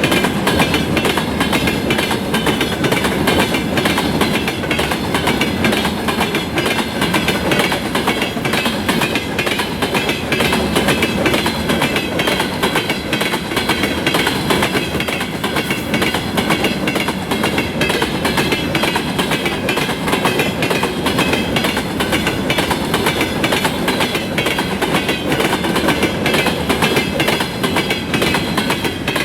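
Freight train rolling past, its wheels knocking rhythmically over the rail joints in a steady clickety-clack.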